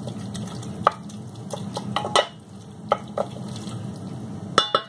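Wooden spoon stirring and tossing spaghetti through tomato passata in a stainless steel saucepan, with wet scraping and scattered taps of the spoon against the pan. Near the end come a few quick, ringing clinks of crockery or metal.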